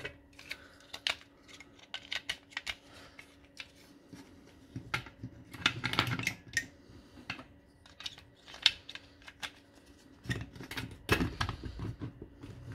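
Plastic casing of a Makita 18V battery pack being fitted together by hand: an irregular run of sharp clicks and knocks with scraping as the top cover is pushed onto the base, the loudest a single sharp click about two-thirds through.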